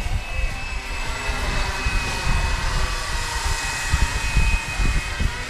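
Flywing BO 105 450-size RC helicopter flying fast, its motor and rotor giving a steady high whine, with wind rumbling on the microphone.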